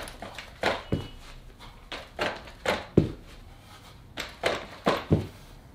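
Inmotion L9 electric scooter's suspension compressing and rebounding as a person bounces on the deck: a run of dull thunks, mostly in quick pairs.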